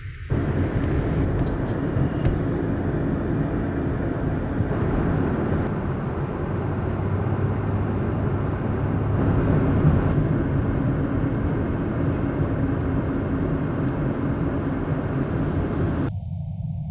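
Steady vehicle rumble from traffic on the move, mostly low noise with a faint engine hum. It starts suddenly and cuts off sharply near the end.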